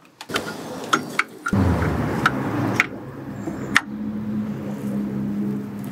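Metal clinks and knocks as a new water pump is offered up and seated on its locating dowels on the engine block. About a second and a half in, a steady low mechanical hum starts up underneath and carries on.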